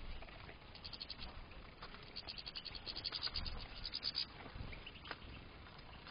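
European goldfinches calling in short runs of rapid, high ticking twitters, repeated about once a second, with a few soft low thumps in between.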